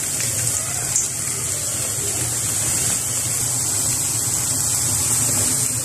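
Steady hiss of thick pumpkin halwa cooking in ghee in a steel pan, over a low steady hum.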